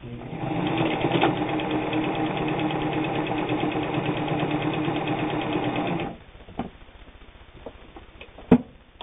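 New Home Type H friction-drive sewing machine running steadily under its motor, stitching, then stopping abruptly about six seconds in. A single sharp click comes near the end.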